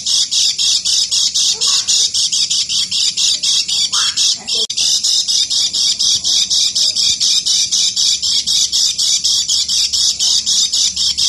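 Kecial kuning, a white-eye, singing in the ngeker style: a continuous rapid chatter of high scratchy notes, about four to five a second, with a brief break about four and a half seconds in.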